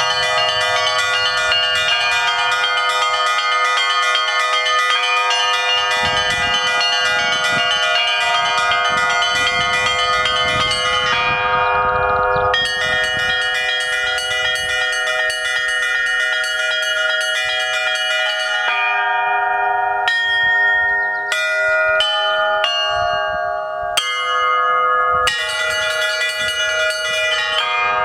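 Russian Orthodox belfry bells rung in a fast peal: quick strikes on small high bells over the lasting ring of deeper bells. The quick strikes thin out briefly about eleven seconds in. About two-thirds through they give way to a few scattered single strikes, then pick up into a fast peal again near the end.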